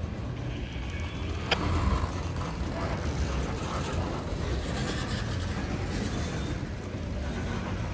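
Freight train rolling past at low speed: a steady low rumble of wheels on rail, with a single sharp click about a second and a half in.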